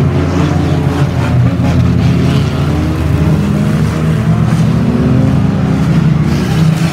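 Several banger racing cars' engines running hard together, revving up and down as they race past, with the pitch rising and falling.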